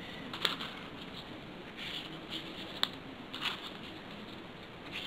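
Triangular paper origami modules being handled and slotted onto a ring of paper modules: soft paper rustling with a few sharp clicks, about half a second in and near three seconds.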